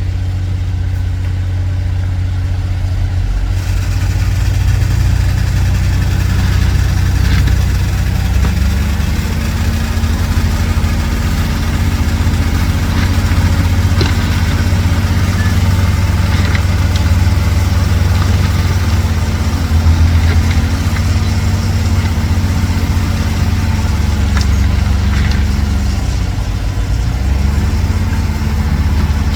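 Dump truck's diesel engine running steadily, its speed stepping up about eight seconds in and holding, then dropping briefly near the end before rising again.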